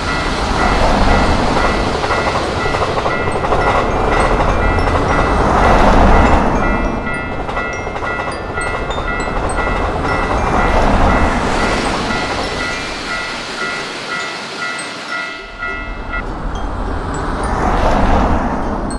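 Japanese railroad-crossing alarm ringing in steady repeated tones over the rumble of passing trains. The train noise swells and fades several times, and the alarm stops near the end.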